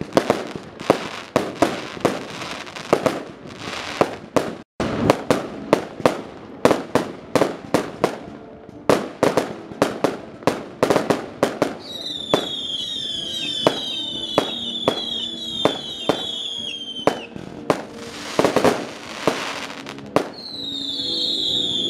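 Daytime fireworks salute: a rapid string of sharp bangs and crackling reports. Rows of high, falling whistles come from about twelve to seventeen seconds in and again near the end.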